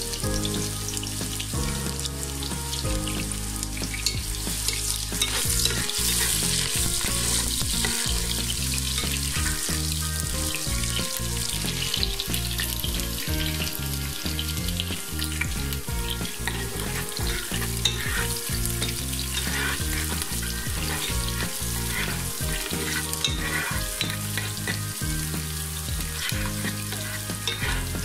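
Sliced onions sizzling as they fry in hot mustard and soybean oil in a pot, with a spatula stirring through them.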